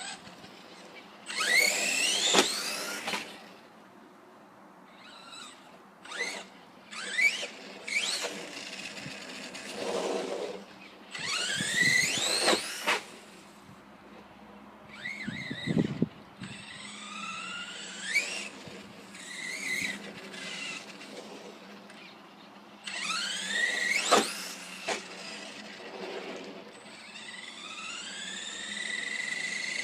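Electric motor of a Redcat Earthquake 8E radio-controlled monster truck whining up in pitch in repeated bursts as it accelerates, about six times. A low thump comes about halfway through.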